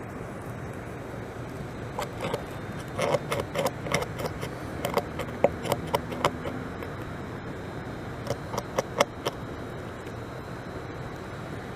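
Beaver gnawing and chewing bark off a log: a run of irregular crunching clicks for several seconds in the middle, over a steady low hiss.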